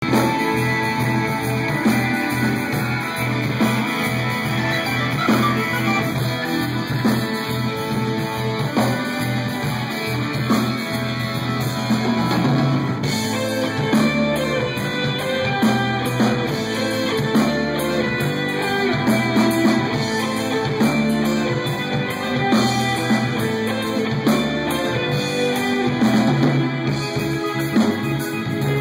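Live progressive rock band playing: electric guitar over keyboards, with bass and drums keeping a steady beat. The bass line changes pattern about halfway through.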